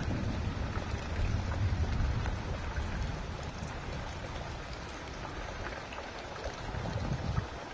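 Light rain pattering and dripping, the tail end of a heavy downpour, with a low rumble that eases off after the first few seconds.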